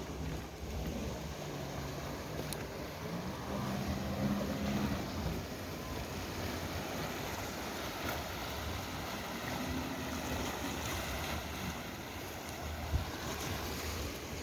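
Wind and sea wash against the breakwater, with the low hum of a boat engine that wavers in pitch, and a single knock about thirteen seconds in.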